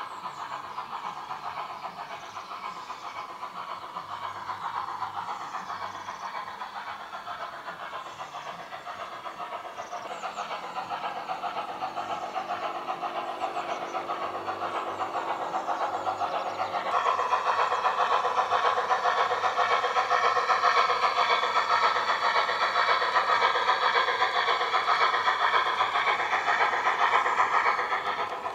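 Garden-scale model train running, a steady motor and gear whine with a clatter of wheels on track, growing louder about two-thirds of the way through as it comes close.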